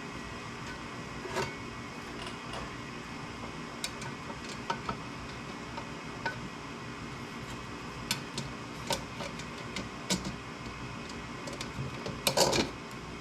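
Scattered light clicks and taps of small parts and tools being handled during work on a diesel heater, with a louder clatter near the end, over a steady background hum.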